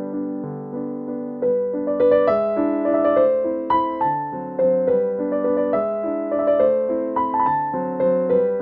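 Background piano music: a gentle melody of single struck notes over soft chords, each note fading after it is played.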